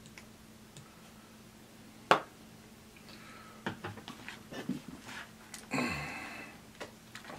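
A single sharp click about two seconds in, then crisp crackling and rustling as fingers pick at and pull on a piece of crispy fried chicken on a paper plate. A faint steady hum runs underneath.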